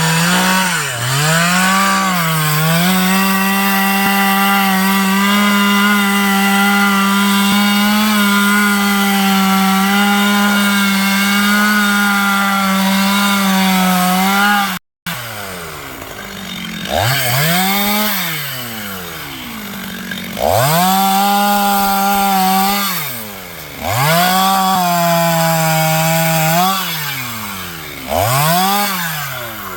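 Stihl two-stroke chainsaw held at high revs cutting into wood for about a dozen seconds. After a brief break, it is revved in repeated bursts, the engine dropping back toward idle and climbing again every three to four seconds.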